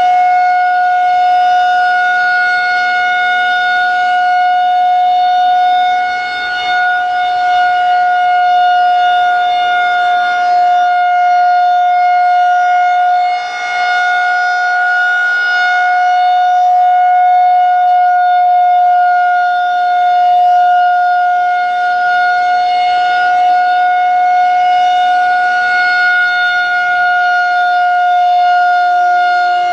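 Federal Signal 2001-130 outdoor warning siren sounding a steady-tone alert: one loud, unwavering pitch that swells and fades slightly about every seven seconds as the rotating siren head sweeps past.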